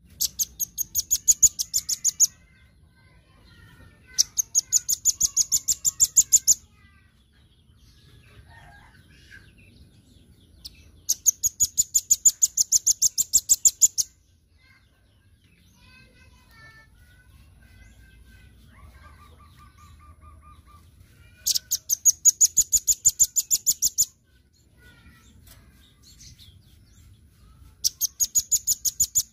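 Velvet-fronted nuthatch calling in five loud, rapid trills of sharp, high repeated notes, about six notes a second and each trill lasting two to three seconds, with faint chirps between them.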